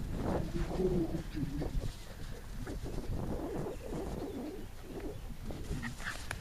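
A dove cooing, a few low notes in the first two seconds, over low wind noise on the microphone.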